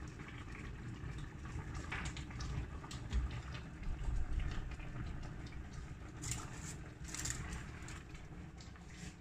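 Foil-lined baking tray being handled, with the aluminium foil crinkling in short crackles and light clicks over a steady low rumble.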